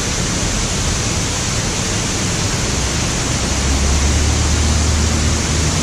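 Rushing water of a waterfall at an old mill site: a loud, steady noise spread across low and high pitches, with a deeper low rumble growing stronger about three and a half seconds in.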